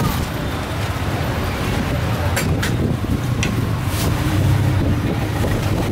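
Busy market ambience: a steady low engine rumble with a few sharp clicks and clatters about two to four seconds in, and some background voices.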